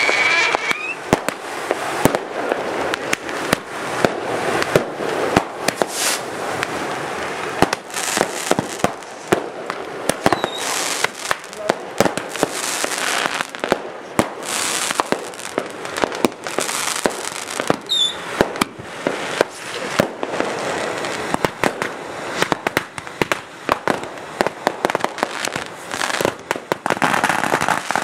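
Consumer fireworks going off in a dense run: rapid bangs and crackling reports, with hissing between them and a few brief falling whistles.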